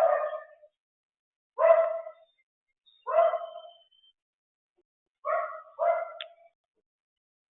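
Five short barks, one every second or two, with the last two close together.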